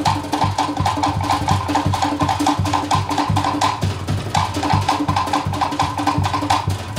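Cook Islands drum ensemble playing a fast, steady rhythm: sharp, pitched strokes on wooden slit drums over a low, booming bass drum.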